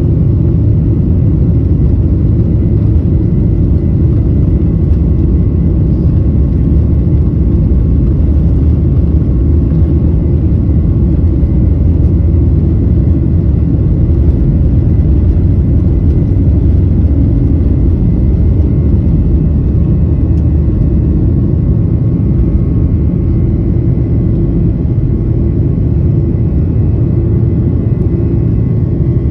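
Boeing 737 turbofan engines at takeoff power, heard inside the cabin beside the wing: a loud, steady rumble with a faint high whine, through the takeoff roll into liftoff near the end.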